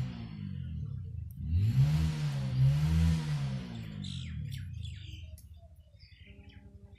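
A passing motor vehicle's engine, its pitch rising and falling twice and loudest in the first half, with birds chirping after about four seconds.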